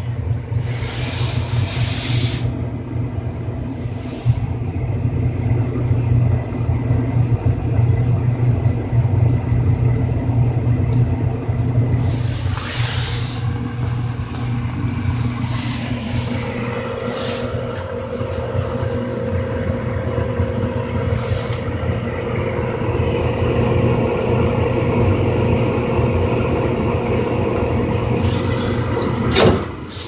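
Trane XE80 gas furnace running with its draft inducer motor and blower on, a steady low hum. A steadier, higher tone joins about halfway through, and there are a few brief rustling scuffs. The furnace is in a four-flash limit fault, with the inducer running on while a limit or rollout switch is open.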